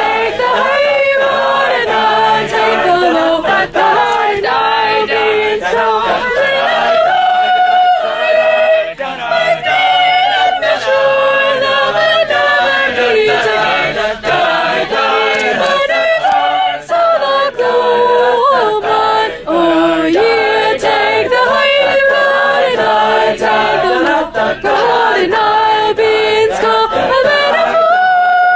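A group of young singers singing a cappella in harmony, held notes moving through a song, with a loud soprano voice close to the microphone.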